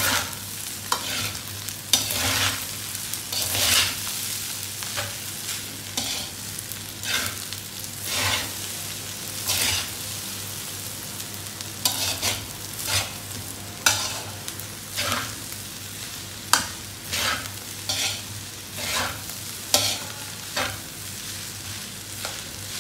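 Spatula scraping and turning fried rice in a metal wok as it fries, in irregular strokes about once a second over a steady sizzle.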